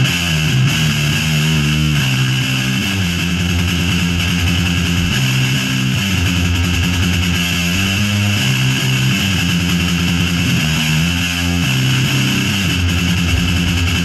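Electric guitar being played: low notes are held and change every second or so, over a constant bright hiss.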